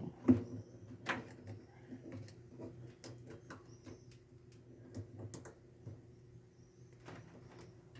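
Scattered clicks and light knocks of parts being handled as a washing machine's actuator is pushed in and clipped into place, with the loudest knock just after the start. A faint steady hum lies underneath.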